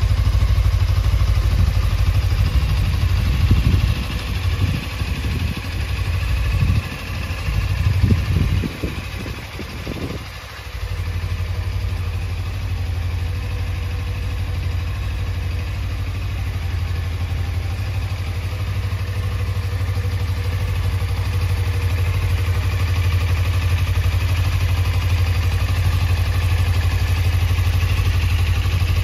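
Suzuki V-Strom 250's 248 cc parallel-twin engine idling steadily. From about three to ten seconds in, the steady note is broken by uneven low bumps and dips.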